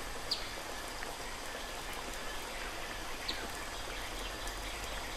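Steady hiss of water running and dripping into a pool, with two brief high chirps that fall in pitch, one near the start and one about three seconds in.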